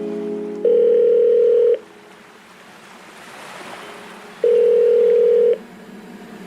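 Electronic background music: two long held tones about three seconds apart, each lasting about a second, over a soft rushing wash like surf.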